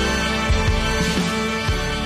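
Background music with a steady beat under the end card: held tones over a regular kick drum.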